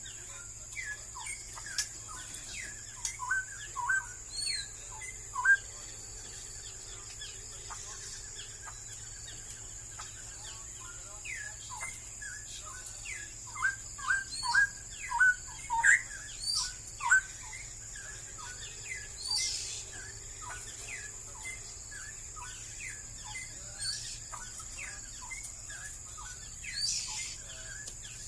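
Straw-headed bulbul singing in quick runs of short whistled notes that rise and fall in pitch. The loudest runs come in the first few seconds and again about halfway through, with scattered quieter notes between, over a steady high-pitched hiss.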